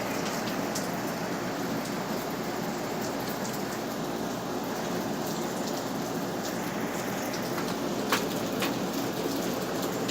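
Rain falling steadily during a thunderstorm, with a couple of sharp taps about eight seconds in.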